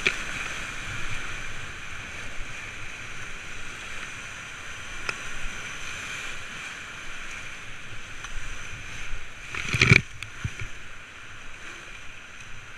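Whitewater rapid rushing and breaking around an inflatable kayak, waves washing over its bow. A loud splash of water comes about ten seconds in.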